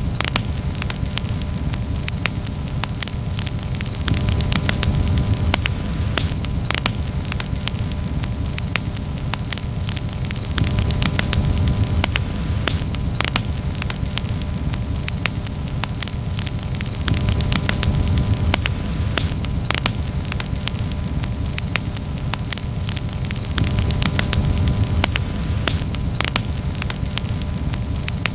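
Campfire crackling steadily, with many sharp pops and snaps over a low rushing sound that swells and eases every few seconds.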